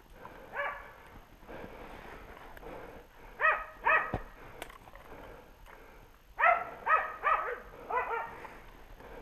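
Hunting dogs barking in short pitched barks: one early, two together about three and a half seconds in, then four in quick succession near the end. Footsteps crunch in snow underneath.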